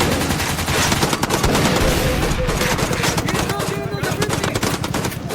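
Dense, rapid shooting clatter like automatic fire, with shots coming continuously.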